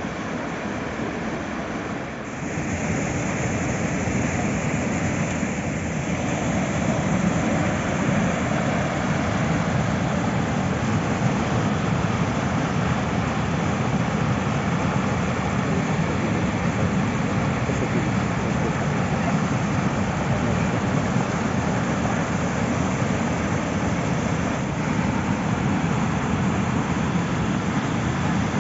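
Kivach waterfall on the Suna River: a steady rush of falling water that gets louder about two and a half seconds in, then holds even.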